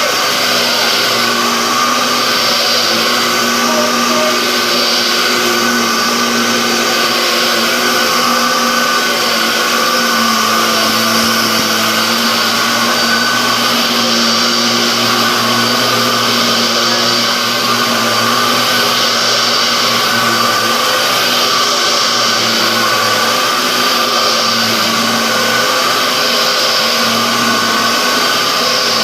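Dyson DC07 upright vacuum cleaner running steadily, its motor whine over a steady rush of air.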